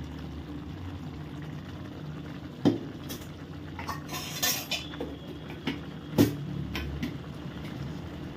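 Metal ladle clinking and knocking against a cooking pan several times, two sharp knocks the loudest, about three and a half seconds apart, over the low steady bubbling of thick upma cooking.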